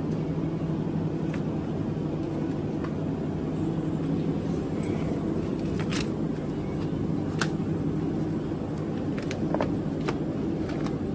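Steady low hum of a supermarket's open refrigerated meat cases and ventilation. A few sharp clicks of plastic-wrapped meat trays being handled come through it, a little past the middle and again near the end.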